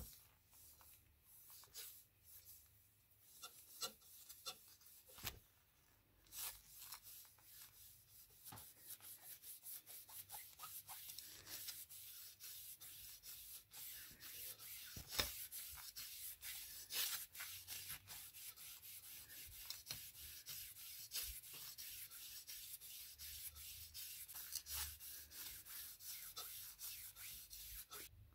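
A cloth rag rubbing a paste into a steel scissor blade with quick back-and-forth strokes. The strokes are faint and scattered at first, then quicken into steady scrubbing about six seconds in.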